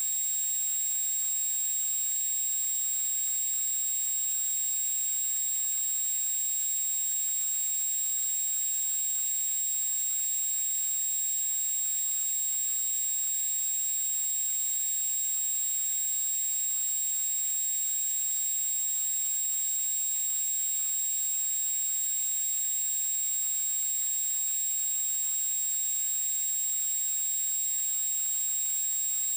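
A steady, high-pitched electronic whine with a constant hiss beneath it, unchanging throughout.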